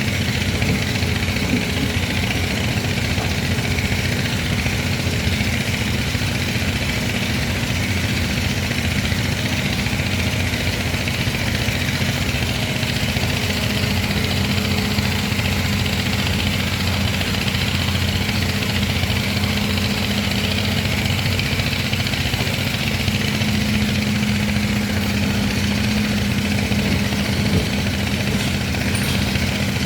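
Hydraulic excavator's diesel engine running steadily at a low, even speed.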